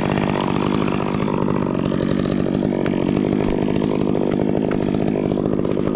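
Stihl chainsaw running steadily at an even speed.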